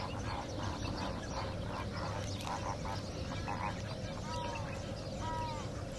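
Flock of greater flamingos calling: a quick run of short, goose-like honks for the first few seconds, then a few separate drawn-out calls that rise and fall in pitch.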